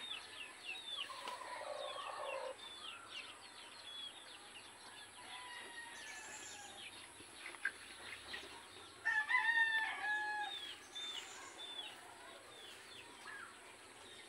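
A rooster crows once, a pitched call lasting about a second and a half, starting about nine seconds in, over short high chirps from small birds that repeat throughout.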